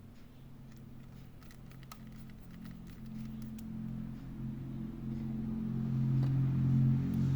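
Background music fading in, low sustained notes growing steadily louder, with a scattering of light clicks and taps in the first half.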